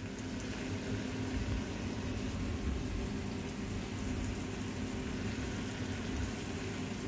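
Ribeye steaks frying slowly in butter in a pan on medium heat: a steady, even sizzle over a low hum.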